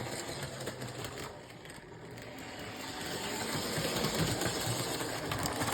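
Lionel Erie FA diesel no. 2032 toy locomotive running around its track, its single electric motor whirring steadily with the wheels on the rails. It dips slightly about two seconds in, then grows gradually louder.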